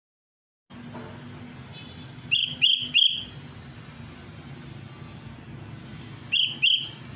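Sooty-headed bulbul (kutilang) calling: three short, loud, clear whistled notes in quick succession, then two more near the end, over a steady low background hum. It is calling out to a rival.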